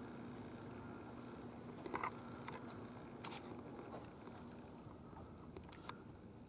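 Quiet room tone: a steady low hum with a handful of faint, scattered clicks and taps.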